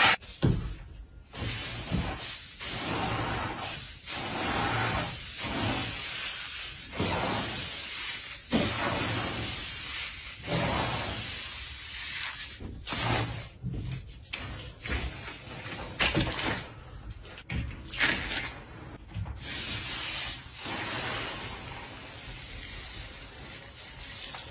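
Hands squeezing, stretching and pressing slime: a run of uneven swells of crackling, hissing noise, one after another, each lasting about a second.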